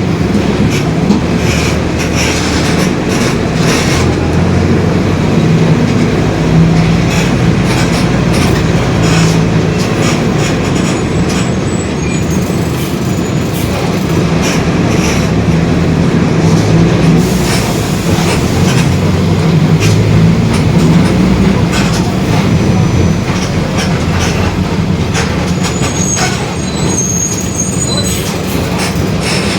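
Mercedes-Benz OF-1721 city bus driving, its four-cylinder diesel and drivetrain making a steady loud drone with many clicks and rattles, and the rear differential growling. A faint high squeal comes in briefly near the end.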